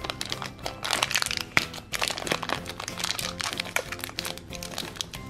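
Thin yellow LDPE plastic blind bag crinkling and crackling as fingers squeeze and work it open, over background music with steady held notes.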